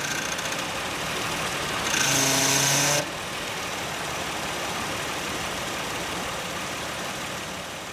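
Failing power steering pump on a Nissan E51 Elgrand, giving a loud pitched groan for about a second, about two seconds in, over the engine's steady idle. The noise is the sign of a failed pump, which also makes the steering heavy.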